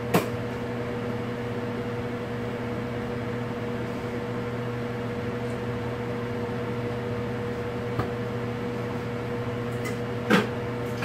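Microwave oven running, with a steady electrical hum. A few short knocks stand out over it: one just after the start and a louder one near the end.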